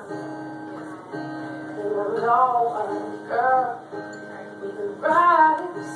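A woman singing while accompanying herself on an acoustic guitar. Sung phrases come about two seconds in, around three and a half seconds and again near five seconds, with the guitar chords ringing on between them.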